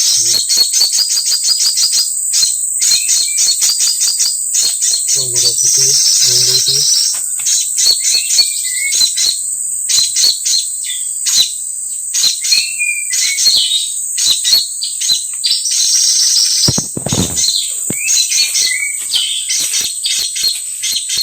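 Birds chirping in rapid series, with a short falling whistle repeated every two to three seconds, over a steady high-pitched insect drone.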